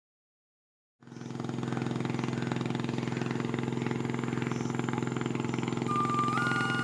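Small motorboat's engine running steadily with a fast, even pulse, fading in about a second in. A held musical tone comes in near the end.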